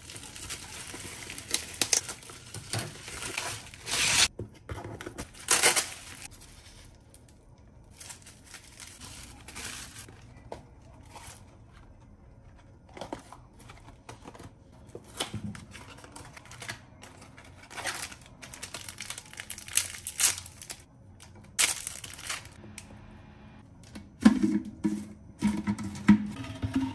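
Bubble-wrap packaging being crinkled and torn open by hand, in an irregular string of short rustles and rips, with packaged boxes handled. Near the end come a few louder knocks of a plastic water carafe being handled over a glass bowl.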